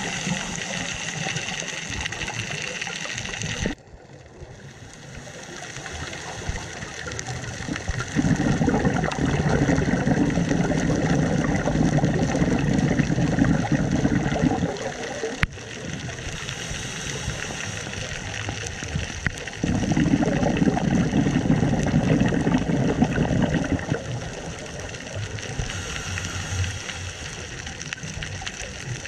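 Underwater camera sound of a scuba dive: a steady hiss, twice broken by a loud, low rumbling of exhaled regulator bubbles, each lasting several seconds.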